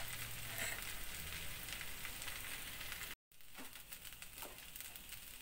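Rice vermicelli frying in oil in a wok: a steady crackling sizzle. It drops out suddenly about three seconds in and comes back quieter.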